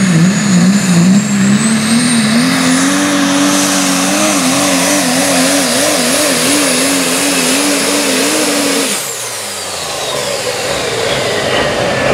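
Chevrolet super stock diesel pulling truck at full power during a pull: the engine note climbs over the first few seconds, then holds with a wobbling pitch under a high, rising turbo whistle. About nine seconds in the engine drops out suddenly as the pull ends, and the turbo whine winds down.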